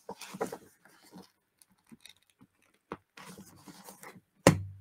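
Paper rustling as the pages of an old stapled booklet are handled and opened, with a small click in the middle and a sharp thump near the end.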